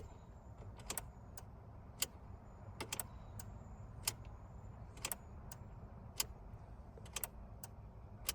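Faint sharp clicks about once a second, some in quick pairs, over a low steady hum.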